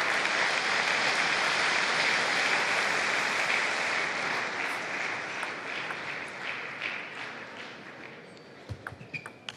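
Crowd applauding in an arena after a point in a table tennis match: steady clapping that fades away over the last few seconds. A few light taps follow near the end.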